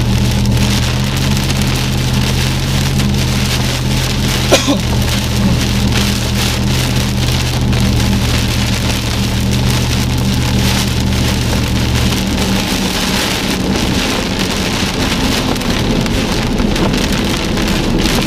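Heavy rain pattering on a moving car's windshield and roof, heard from inside the car over a steady low hum from the vehicle. A single sharp knock about four and a half seconds in, and the low hum drops away about twelve seconds in.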